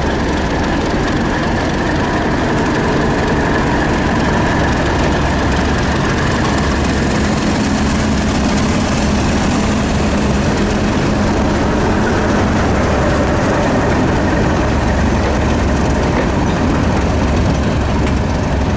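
Preserved British diesel train's engine running loudly and steadily, with a deep rumble and a few steady tones held throughout.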